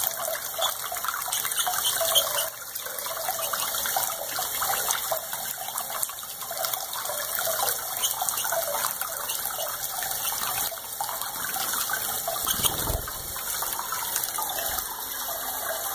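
Tap water running steadily from a faucet in a thin stream, splashing into cupped hands and onto a small bird bathing in them.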